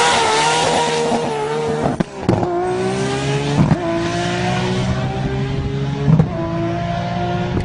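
Turbocharged car engine accelerating hard through the gears, its pitch climbing steadily in each gear. At each of three gear changes, about two seconds in, past three and a half and just after six seconds, there is a short sharp burst as the throttle closes, where turbo flutter is heard.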